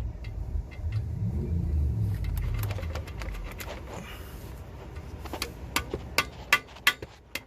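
A low engine-like rumble that swells and fades over the first three seconds, then a run of sharp metal taps, about three a second, near the end.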